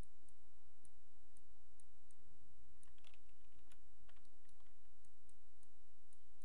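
Scattered, irregular clicks of a computer mouse placing curve points, with the odd key press, over a steady low hum of the recording.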